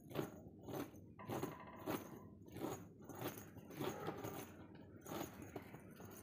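A mother cat and kittens moving and playing on a woven plastic mat: a quick series of short scratchy rustles, two or three a second.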